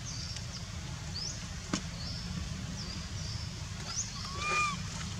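Short high chirping animal calls repeat about once a second over a steady low rumble. Near the end comes one brief, higher squealing call that bends up and then down.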